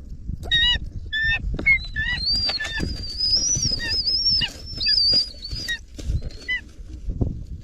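Eagle calling: a series of short pitched calls and a long, high, wavering whistle. These are typical begging calls while the young eagle is being fed. A low rumbling noise runs underneath.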